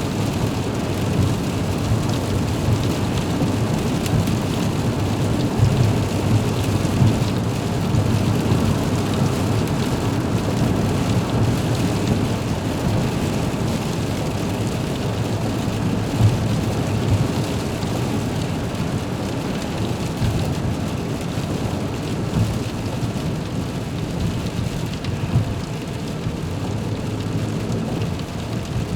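Rain drumming on a car's windshield and roof, heard from inside the car: a dense low patter of many drops with scattered sharper taps, steady throughout.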